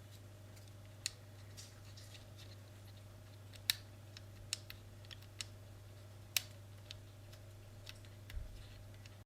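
Irregular sharp clicks and taps of small plastic parts as an opened Xbox One controller is handled and taken apart, about a dozen in all, the loudest two a few seconds apart, over a low steady hum.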